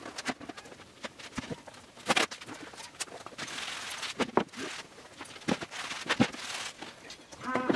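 Sheets of plywood being handled and laid on a wooden table: a series of knocks and thuds as the sheets are set down, and a scraping slide as one is pushed across the tabletop. A short squeak near the end.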